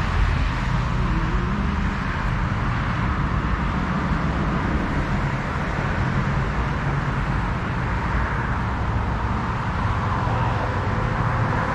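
Steady road traffic noise from cars passing on a busy street.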